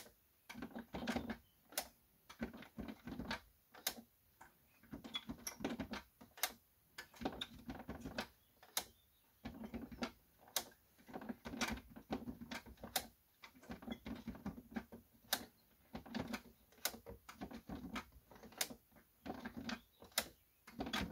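Plastic clicking and ratcheting from a Whirlpool dishwasher's programme knob being turned and its start button being pressed, in irregular bursts of clicks about every second or two. No motor or pump sound starts: the machine won't start.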